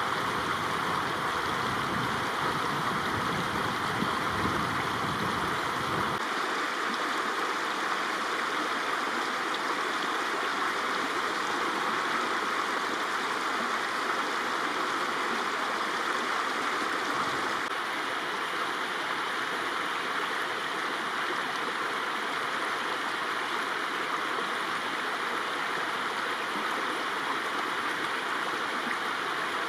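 Spring-fed mountain stream running down a hillside, a steady rush of water. A low rumble underneath stops abruptly about six seconds in.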